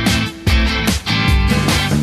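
Background music: rock with guitar and a steady beat.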